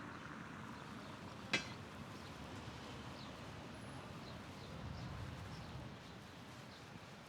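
Open-air promenade ambience: a steady low rush with a single sharp click about a second and a half in, and a few faint short high chirps later.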